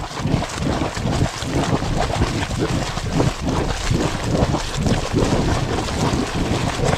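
Hot spring water bubbling and gurgling continuously, with many irregular low bubble pops.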